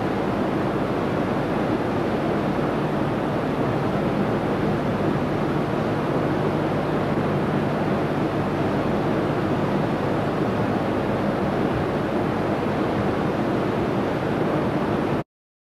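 Steady rushing noise, like surf or wind, with a faint low hum underneath; it cuts off suddenly near the end.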